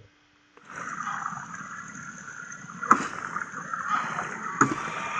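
Two sharp knocks of a stick on a feed bucket, about a second and a half apart, tapping to call geese to their feed, over a steady noisy hiss.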